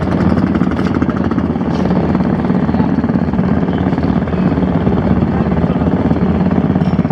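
An engine running steadily at an even speed, a low drone with a fast regular throb.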